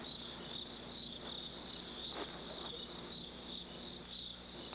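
Crickets chirping steadily: a high, pulsing trill of night insects.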